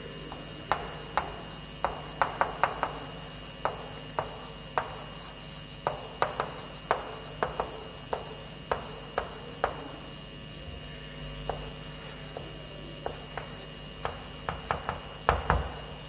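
Chalk tapping and scratching on a blackboard as words are written, in quick, irregular clicks with short pauses, over a steady low hum. A louder knock near the end.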